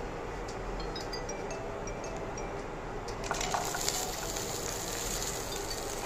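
Urad dal and dried red chillies crackling with small ticks as they roast in oil in a kadai. A little over three seconds in, small onions (shallots) drop into the pan with a brief clatter, and the oil's sizzle grows stronger.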